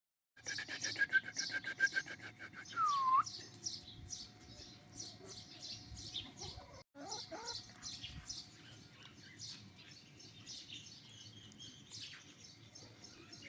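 Small birds chirping rapidly and continuously in high, short notes, with a quick run of repeated even notes in the first couple of seconds and one swooping call about three seconds in; the sound drops out for an instant about halfway.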